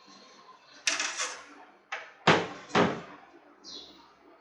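Hard plastic clacking and knocking as pieces of a split air conditioner's indoor-unit casing are handled and set down. There are about five sharp clacks over a couple of seconds, and a fainter one near the end.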